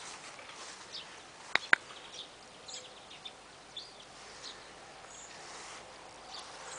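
Scattered faint bird chirps, with two sharp clicks a moment apart about a second and a half in.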